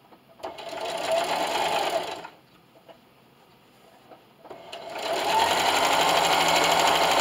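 Electric sewing machine straight-stitching through fabric and polyester batting. It runs in two goes: a short burst about half a second in, a pause, then a longer run that speeds up from about four and a half seconds in and holds steady.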